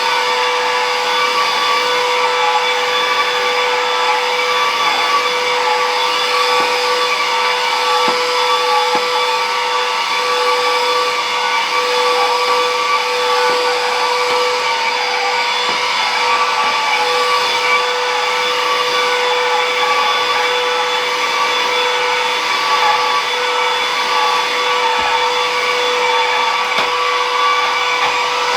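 Stick vacuum cleaner running steadily, a constant whine with a strong even tone over the rush of air.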